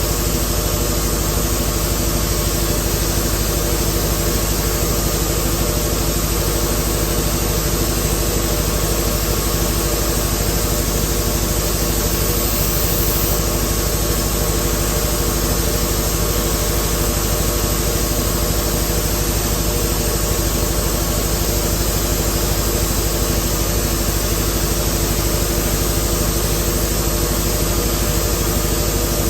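1970s Mercury 200 20 hp two-stroke outboard motor running steadily in a barrel of water on its freshly rebuilt carburetor.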